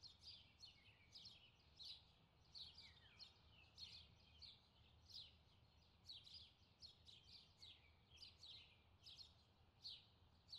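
Faint birds chirping: many short, high chirps at irregular intervals, several a second, over near silence.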